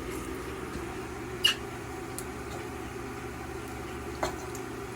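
Steady hum of appliance cooling fans from an induction cooktop and a portable power station's inverter, with one sharp clink about a second and a half in and a faint tick near the end.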